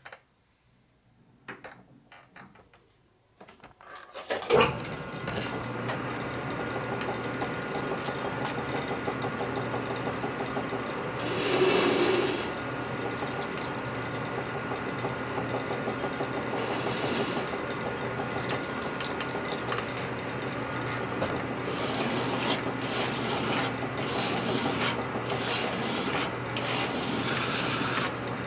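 A few light clicks, then a metal lathe starts about four seconds in and runs steadily while its cutting tool turns a radius on the edge of a part held between centers, with a brief louder patch partway through.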